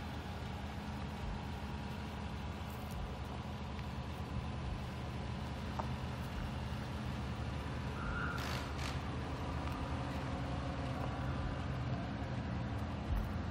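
A vehicle engine running with a steady low hum, and a short hiss about eight seconds in.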